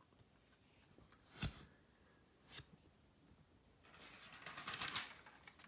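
Handling noise: two soft knocks, then a second or so of rustling from paper being shuffled and the camera being moved.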